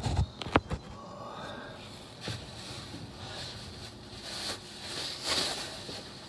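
A few sharp knocks in the first half-second, then a low steady hiss with soft rustling swells.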